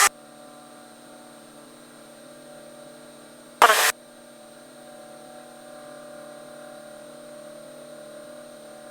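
Cessna 172's engine running steadily in the climb and pattern, heard as an even drone with several steady tones. A brief loud burst of noise comes about three and a half seconds in.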